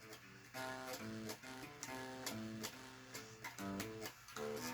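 Guitar played softly, a line of single picked notes changing pitch every fraction of a second, in A minor pentatonic riff style.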